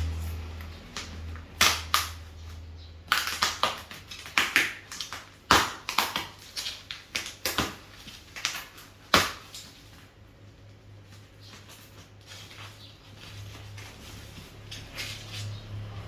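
Packaging being handled and torn open: a run of sharp crackles and snaps for several seconds, then quieter rustling.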